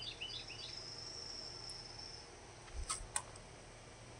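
Quiet summer outdoor ambience: high two-note chirps repeating about three times a second, then a thin steady high buzz lasting about two seconds. A little under three seconds in come two sharp clicks of the camera being handled as it is passed over.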